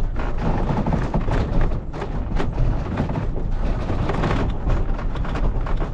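Narrow-gauge railroad passenger car rolling along the track: a steady low rumble with frequent irregular knocks and clatter from the wheels on the rails.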